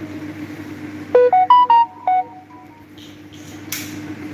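A short electronic jingle of about six quick beeping notes, heard over a steady hum, followed near the end by a single click.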